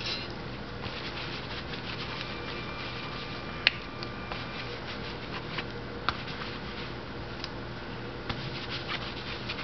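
Cloth rubbed over a stainless-steel plate by latex-gloved hands, wiping it clean: soft rubbing and faint crackling, with a few sharp clicks, the loudest a little over a third of the way in, over a steady low hum.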